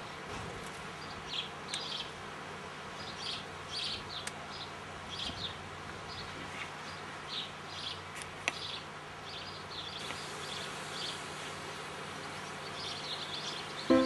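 Garden ambience: short, high chirps of small birds repeating every second or so over a steady low hum.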